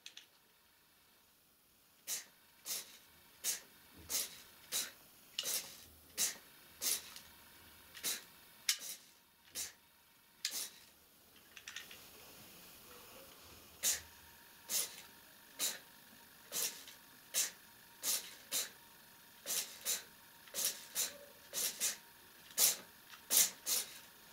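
Lego Power Functions M-motor driving a Technic return-to-center steering in short whirring bursts, about one to two a second, with a pause of about three seconds around the middle; the wheels swing to one side and a rubber band pulls them back to center each time.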